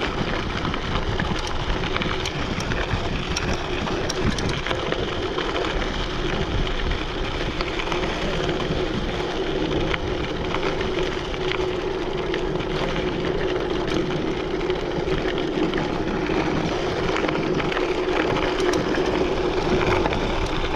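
Mountain bike rolling along a dirt and gravel trail: steady tyre noise on loose dirt with a low steady hum and many small clicks and rattles.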